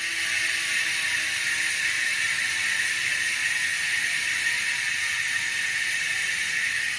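Sagmit M120 mountain bike hub freewheel buzzing steadily as the wheel spins, its pawls clicking too fast to tell apart.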